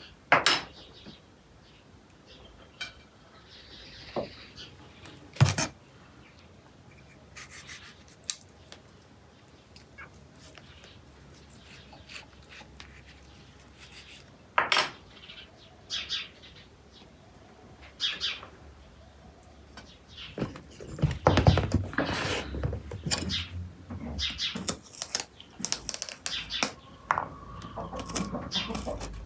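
Kitchen knife cutting tomato and green peppers on a wooden chopping board: scattered knocks and clicks of the blade on the board, coming thicker and louder about two-thirds of the way through.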